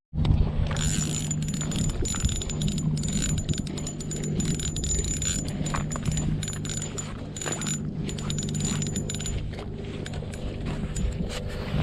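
A small motor running steadily with a low hum, with sharp metallic clicking and rattling over it and a thin high whine that stops near the end.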